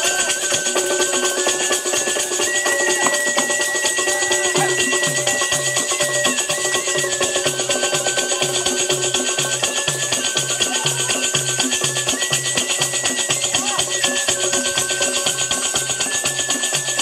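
Bundeli Rai folk music: a barrel drum beating about twice a second from about four seconds in, over constant jangling metal percussion and a held high melody line stepping between a few notes.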